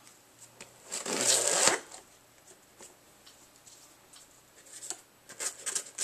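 A cardboard box and hand tools shuffled across a cloth-covered surface, with a brief loud rustling scrape about a second in. Near the end, a knife blade scraping and cutting into the box's packing tape and cardboard, a quick run of scratchy strokes.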